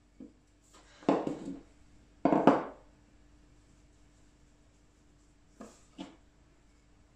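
Wooden rolling pin rolling and knocking on a tabletop: two rough rumbles of about half a second each, a second or so in and again about two and a half seconds in, then two light knocks near the end.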